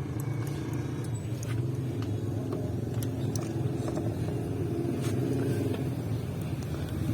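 A vehicle engine idling steadily, with a number of short, sharp metallic clicks scattered through it.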